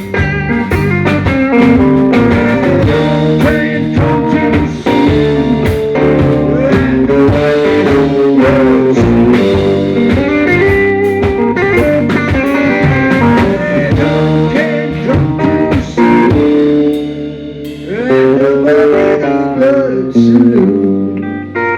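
Live blues-rock band playing an instrumental passage led by electric guitar over bass and drum kit; the band thins out about three quarters of the way through, then the guitar comes back in.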